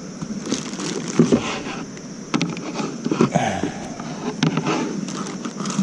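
Irregular knocks, clicks and scrapes of fishing gear being handled against a plastic kayak hull.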